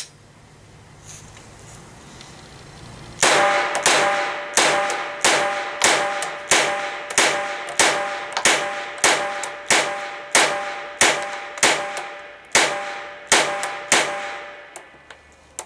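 Glock 17 pistol firing a string of about seventeen shots at a steady pace, roughly one every two-thirds of a second, each shot followed by the ringing clang of a struck steel target; the magazine feeds the whole string without a stoppage. A single sharp click comes at the very start, before the shooting.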